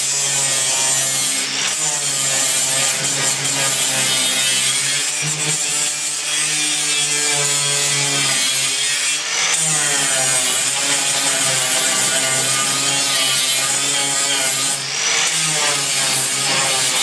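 Electric angle grinder running and grinding on the steel floor of a pickup bed, dressing down welds, with a steady motor hum and a high whine. The grinding briefly lets up about three times as the disc eases off the metal.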